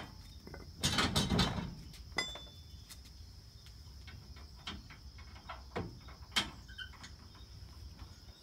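Metal clinks and rattles of a steel hitch pin being fitted through a heavy steel hitch extension in a truck's receiver: a short clatter about a second in, a sharp click with a brief ring just after, then a few single clicks. Crickets keep up a steady high trill behind.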